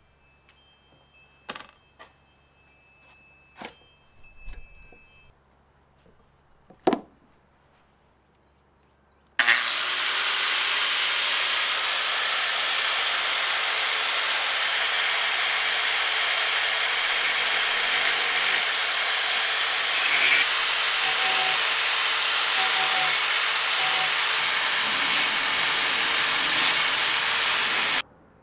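A few separate knocks and clicks, then about nine seconds in a Makita angle grinder spins up and grinds the cutting edge of a steel lawnmower blade: a loud, steady rush of metal grinding that lasts about eighteen seconds and cuts off suddenly.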